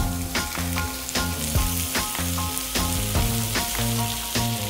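Bone-in beef steak sizzling steadily as it sears on a well-preheated ridged grill pan. Background music with a steady beat plays along with it.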